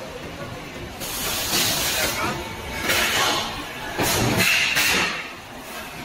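Factory machinery on an electric water heater shell rolling and seam-welding line, with several hisses of compressed air from its pneumatic cylinders, each about a second long. A short steady whine comes in about four and a half seconds in.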